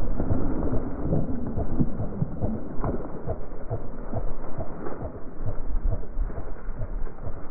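Footsteps crunching and pushing through deep snow and dry cattail stalks, an irregular run of crunches and rustles over a low rumble.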